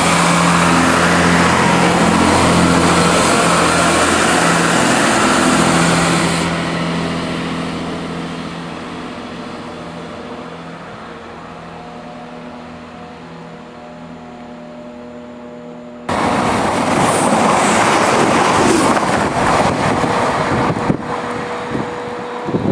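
Diesel multiple-unit trains: a departing unit's diesel engines run loud, then fade away over several seconds to a quieter steady hum as the next unit approaches. About two-thirds of the way in the sound cuts abruptly to a loud rushing noise with scattered knocks.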